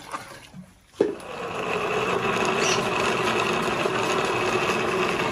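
Electric countertop blender starting suddenly about a second in, then running steadily at speed as it grinds fresh coconut flesh with water into coconut milk.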